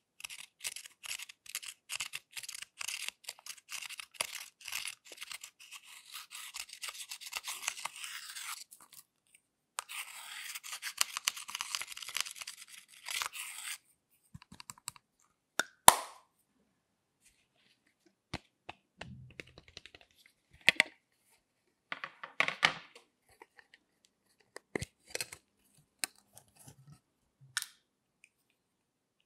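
Thin metal tool scraping rapidly at pressed powder in a plastic makeup compact, in two long spells of quick strokes. Then scattered sharp clicks and taps of plastic makeup cases being handled, the loudest a single click shortly after the scraping stops.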